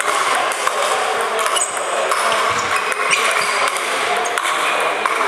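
Celluloid table tennis ball clicking off sandpaper bats and the table in a rally, at an uneven rhythm, over a steady haze of background noise.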